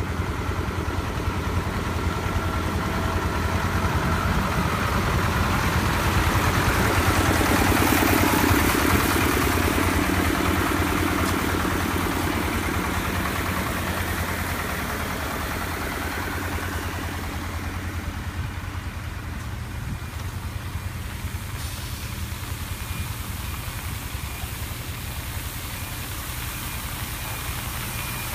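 Diesel engine of a Leyland DAF bitumen tanker running as it creeps along, with a rushing hiss that swells and fades over several seconds in the middle as the rear spray bar sprays hot bitumen. Faint repeated reversing-alarm beeps come in for the last few seconds.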